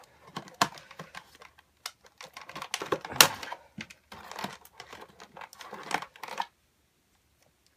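Miniature cutters clicking and snipping at a tough plastic zip tie, with plastic packaging rattling and crinkling and one sharper snap about three seconds in. The handling noise stops abruptly about six and a half seconds in.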